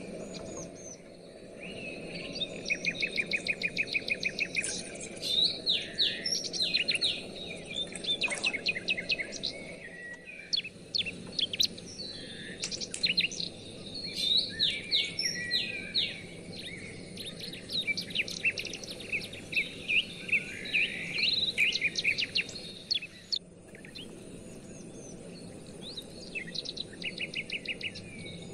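Songbirds singing and chirping, with quick trills of repeated notes and scattered chirps, over a steady low background noise. The singing pauses briefly a little after the middle of the stretch, then resumes.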